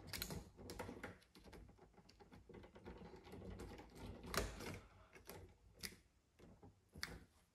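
Scattered small metallic clicks, taps and handling noise from a hand tool and fingers working at a steel 4x4 electrical box and its exposed-work cover, with a few sharper clicks in the second half.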